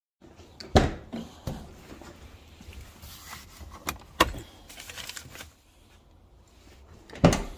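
Mazda RX-7's door being opened and handled: several sharp clicks and knocks, the loudest about a second in and near the end, with a key jangling in between.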